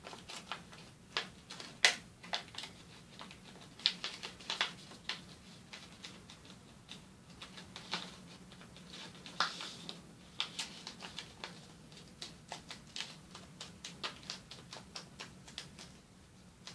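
A sheet of origami paper being folded and creased by hand: irregular crisp crackles and clicks as the paper is bent and the folds pressed flat. The loudest snap comes about two seconds in, with a quicker run of small clicks in the second half.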